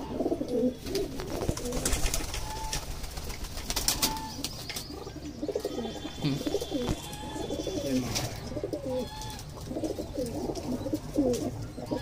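A flock of domestic pigeons cooing, many low warbling coos overlapping without a break, with a few sharp clicks mixed in.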